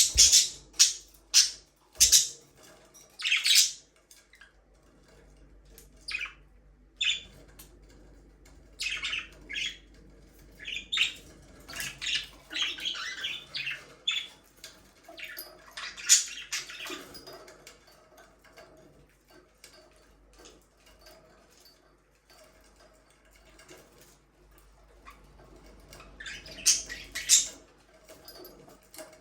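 Budgerigars chirping and squawking in quick, short high-pitched calls. The calls come in bursts: loud in the first few seconds, again in the middle and near the end, with a quieter stretch between.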